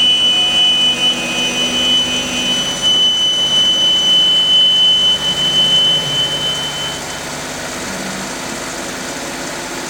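Four-wheel-drive vehicle's drivetrain running while its viscous coupling is forcibly worked to bed in the internal surfaces, a treatment for the coupling's abnormal noise. A steady high whine sits over a lower running drone and stops about seven seconds in.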